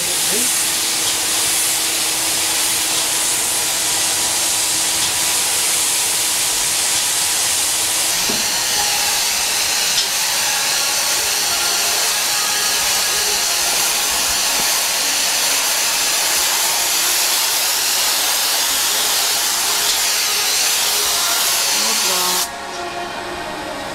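Hand-held paint spray gun hissing steadily as it sprays paint onto an aircraft fuselage; the hiss drops away near the end.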